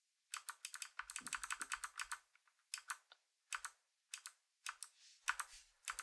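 Keystrokes on a mechanical keyboard: a quick run of typing, then scattered single and paired key presses.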